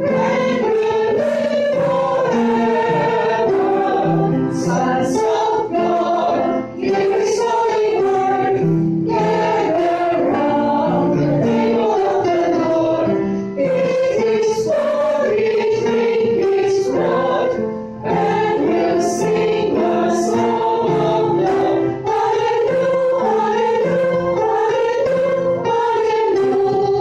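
A choir singing in rehearsal, several voices together in continuous phrases with only brief breaks between them.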